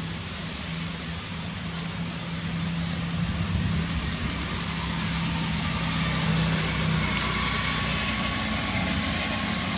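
Steady low motor hum under a constant hiss; the hum weakens about seven seconds in.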